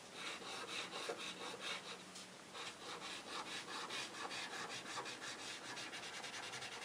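Chunky blue colouring pencil scribbling on paper: rapid back-and-forth shading strokes in a quick, even rhythm that speeds up about halfway through.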